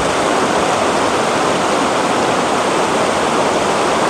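Shallow rocky river rushing over boulders in small rapids, a steady, loud flow of water.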